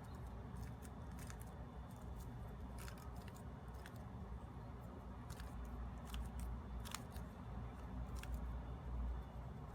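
Plastic 3x3 Rubik's cube being turned by hand: scattered, irregular clicks and clacks as its layers snap round.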